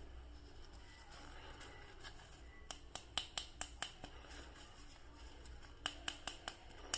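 Sharp clicks from a plastic action figure or its packaging being handled. They come in two quick runs of about five clicks each, a few seconds apart.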